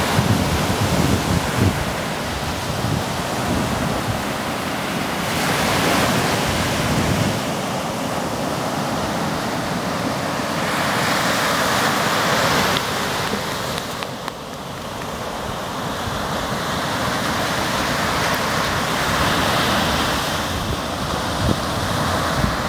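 Baltic Sea surf breaking and washing up a sandy beach: a steady rush that swells every few seconds as waves break. Wind rumbles on the microphone at times.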